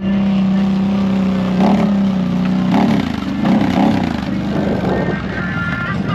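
A motor vehicle engine running with a steady drone, wavering up and down in pitch through the middle; music comes in near the end.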